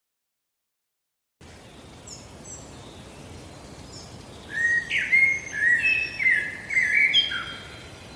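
Songbirds chirping over a steady outdoor hiss, starting after about a second and a half of silence; in the middle a bird sings a quick run of loud, clear phrases for about three seconds.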